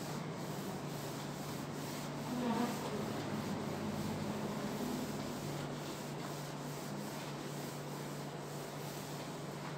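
A cloth wiping marker writing off a whiteboard: steady rubbing strokes across the board's surface.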